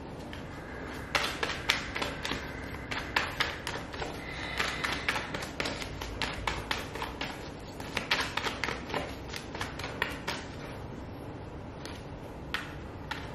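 Tarot cards being shuffled by hand: a quick, irregular patter of card flicks and slaps in spurts, dying away about ten seconds in, with one more click near the end.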